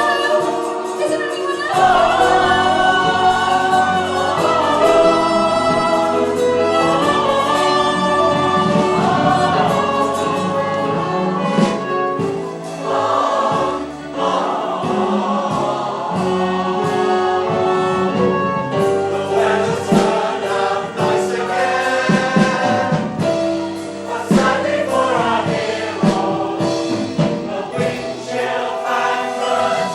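A chorus of voices singing a musical-theatre number with instrumental accompaniment.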